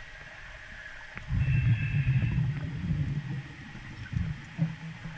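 Low underwater rumble from a welding simulation test tank. It swells up loudly about a second in, with a faint high tone above it, and fades back to a steady hiss after a couple of seconds.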